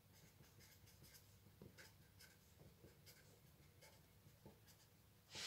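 Faint scratching and tapping of a felt-tip pen drawing short strokes on paper, coming in irregular bursts.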